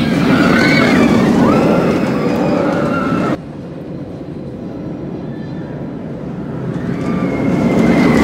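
Roller coaster train rumbling past overhead on its track, with high wavering squeals above the rumble. The sound cuts off abruptly about a third of the way in to a quieter rumble, then swells again near the end as another train approaches.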